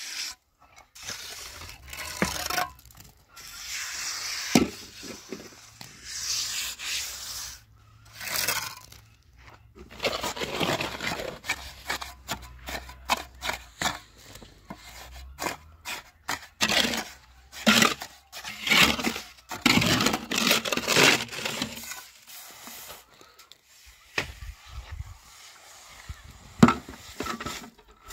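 Irregular scraping and rubbing strokes, with a sharp knock now and then.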